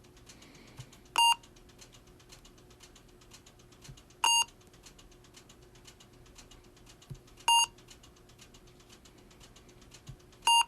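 Electronic beep: a short, identical tone sounding four times, about every three seconds, over a faint steady hum.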